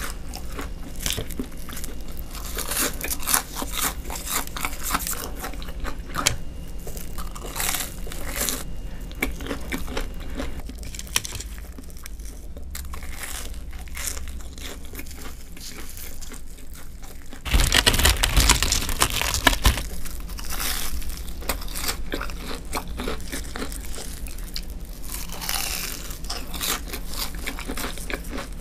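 Close-miked crunching and chewing of deep-fried, crumb-coated sticks, with crackly bites scattered throughout and a louder run of crunchy bites about two-thirds of the way through.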